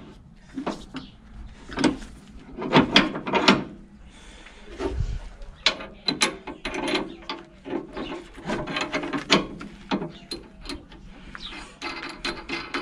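Irregular steel clanks, knocks and scraping from a UTB U445 tractor's three-point hitch lower link arm being worked by hand onto a rotary tiller's hitch pin.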